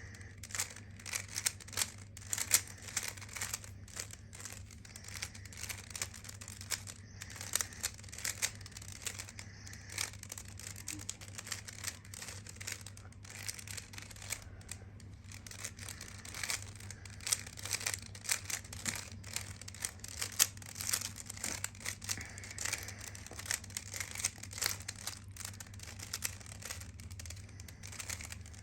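Rubik's cube being turned quickly by hand: a continuous, irregular run of short plastic clicks and clacks as its layers twist, over a steady low hum.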